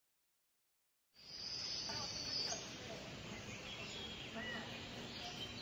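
Silence for about a second, then outdoor ambience fades in: a steady background hiss with a high thin tone for a second or so, and a few short bird chirps.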